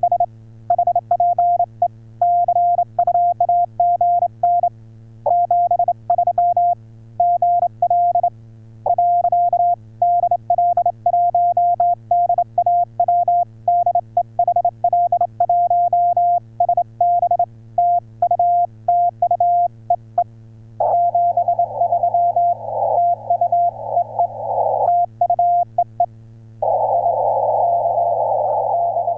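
Morse code (CW) from an HF radio transceiver on the 10 m band: a single steady beep keyed on and off in quick dots and dashes. From about two-thirds of the way in, a band of hiss comes and goes around the tone, partly covering it. A faint steady hum lies underneath.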